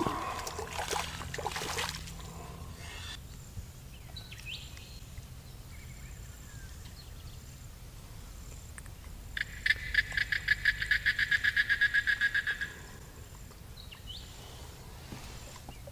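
A frog calling near the water: a rapid pulsed trill lasting about three seconds, starting a little past halfway. A brief rustle at the start, and faint chirps here and there over a quiet evening background.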